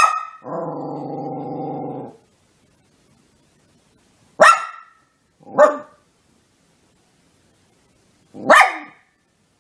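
Dachshund barking: four short, sharp single barks spaced out with pauses, and a held, lower sound of about a second and a half right after the first bark.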